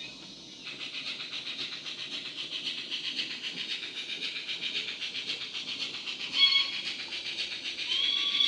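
DCC sound decoder with a Wheeltappers sound file for a model J70 0-6-0 steam tram engine, played through the model's small speaker: quick, even steam chuffs as the loco runs. A short whistle toot comes about six and a half seconds in, and a longer whistle starts near the end.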